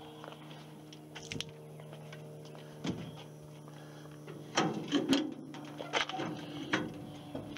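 Agri-Fab Utility 10 metal yard cart being tipped over: a handful of knocks and clunks of its bed and frame, most of them past the middle, over a steady low hum.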